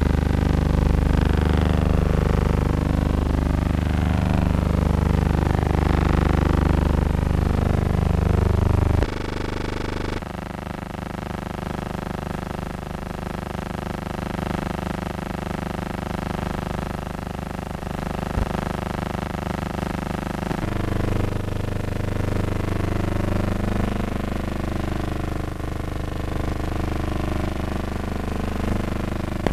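A low, steady drone of sustained tones, which changes abruptly about nine seconds in and again about twenty-one seconds in.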